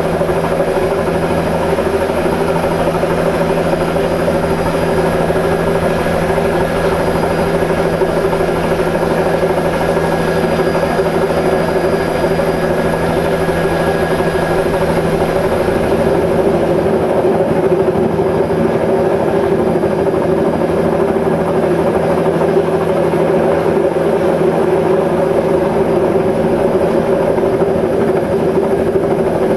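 Steady engine drone of the aircraft in flight, heard from on board: an even hum made of several constant tones, the lowest of which drops out about halfway through.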